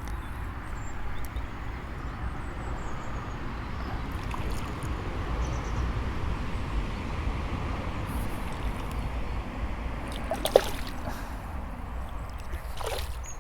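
Water splashing and sloshing as a small hooked barbel of about 10 ounces is played to the bank and landed, with one sharp click near the end.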